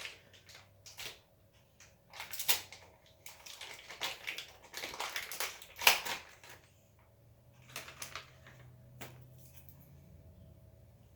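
Irregular crinkles, clicks and knocks of packaging and parts being handled, the sharpest knock about six seconds in. The second half is quieter, with a low hum and a few light clicks.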